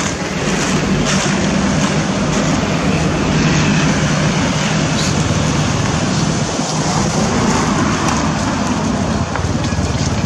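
Steady road traffic noise from passing vehicles, a continuous rushing sound with a low hum underneath.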